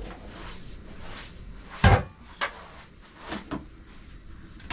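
Household handling sounds: one sharp loud knock about two seconds in, then a few lighter knocks and clicks.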